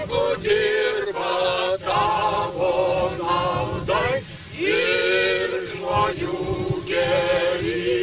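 A crowd of men and women singing together, in phrases with brief breaks between them.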